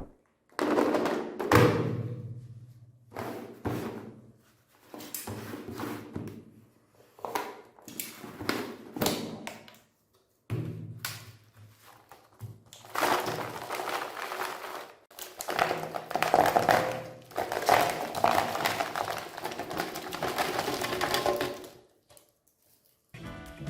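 Meat grinder working chocolate: a run of irregular thunks and knocks for about half the time, then a longer stretch of continuous grinding noise that stops about a second before the end.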